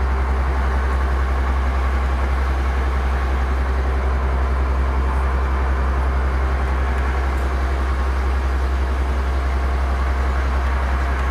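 Fishing boat's engine running steadily: a constant low drone that does not change in pitch or level.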